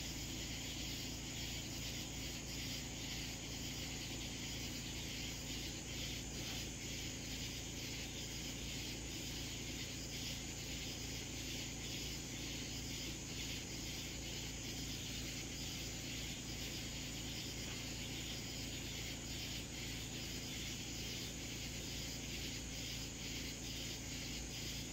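Steady night-time insect chorus, a high continuous chirring, over a low steady hum.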